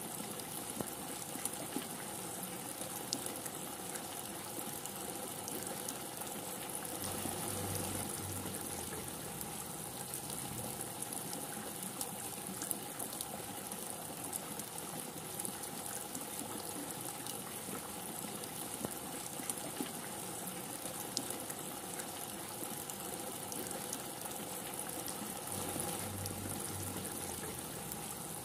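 Steady heavy rain with scattered sharp ticks of single drops, and a brief low rumble twice, about eight seconds in and near the end.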